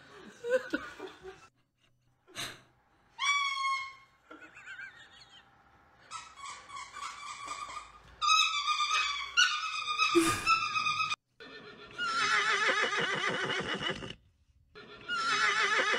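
A white umbrella cockatoo calling with loud, shrill cries, followed near the end by a horse whinnying loudly twice, each a long, wavering cry.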